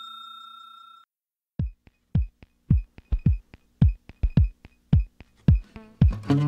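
A notification-style bell chime fades out in the first second. After a short gap, background music starts with a steady drum-machine kick beat, about two beats a second, and fuller music comes in near the end.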